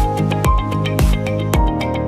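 Music with a steady beat, a low thump about twice a second under sustained pitched notes.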